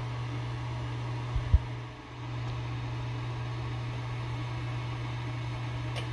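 Elegoo Mars resin printer humming steadily from its cooling fan, with two short low thumps about a second and a half in. Near the end comes a faint pop as the build plate lifts and the cured layer peels off the vat film.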